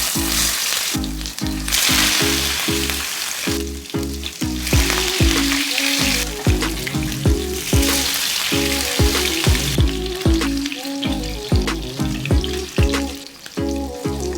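Food frying in hot oil in a pan, sizzling in long spells that ease off after about ten seconds. Background music with a steady, repeating beat plays throughout.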